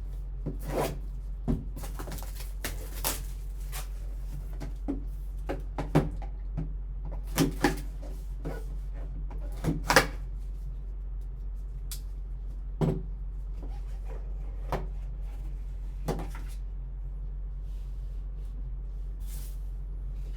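Hands opening and handling a hockey card box and its packaging: scattered clicks, taps and rustles of cardboard and plastic, a few sharper knocks among them, over a steady low electrical hum.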